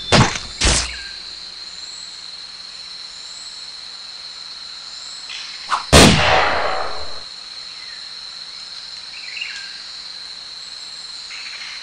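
Cricket and insect chirring ambience with a steady high whine. It is broken by two sharp bangs right at the start and a loud boom about six seconds in that dies away over about a second.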